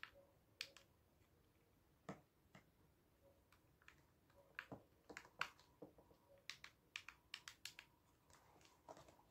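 Faint, irregular small plastic clicks and taps from handling the opened wireless speaker's button parts, bunched in quick runs about halfway through and again later.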